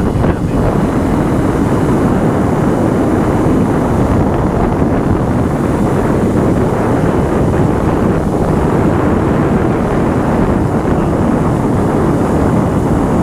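Wind noise on a motorcyclist's microphone at riding speed: a steady, loud rush that covers the motorcycle's engine.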